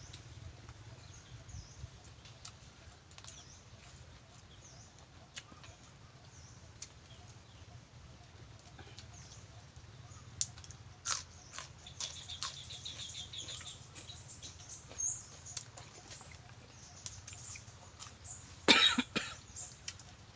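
A person eating, with scattered faint clicks over a low steady hum, and one loud short cough a little before the end. A bird gives a rapid chirping trill about halfway through.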